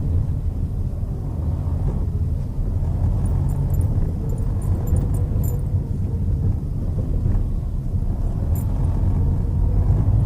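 Chevrolet Celta 1.0 four-cylinder car heard from inside the cabin while driving: a steady low engine and road rumble, with a few faint light ticks in the middle and once near the end.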